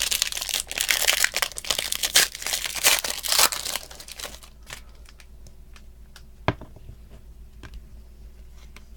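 A trading card pack's wrapper being torn open and crinkled for about four seconds, followed by quieter rustling and clicks as the cards are handled, with one sharp tap about six and a half seconds in.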